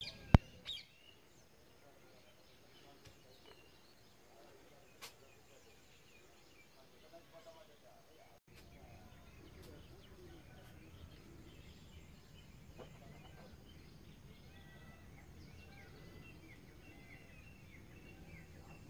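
Faint outdoor ambience with small birds chirping, the chirps coming more often in the second half. A single sharp click sounds in the first half-second.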